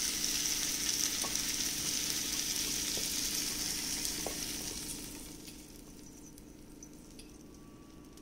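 Oil sizzling in a hot nonstick pan of roasted broccoli and carrot pieces as they are tipped out onto a plate, with a few faint taps. The sizzle fades away about five seconds in.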